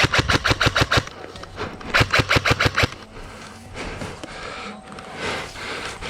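Airsoft rifle firing two quick bursts of rapid shots, about ten a second: the first right at the start, the second about two seconds in, each lasting about a second.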